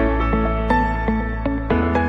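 Background music in a gentle new-age style: quick, evenly paced notes over a held bass note that changes about three-quarters of the way through.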